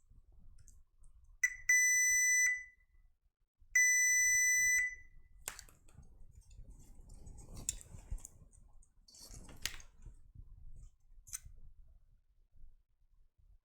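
Digital multimeter's continuity beeper sounding twice, each a steady high beep about a second long, as the probes find a short or very low resistance. Faint clicks and handling noise follow.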